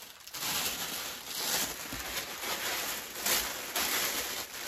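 Clear plastic wrapping and tissue paper rustling and crinkling as a wrapped parcel is handled, in uneven surges of crackle.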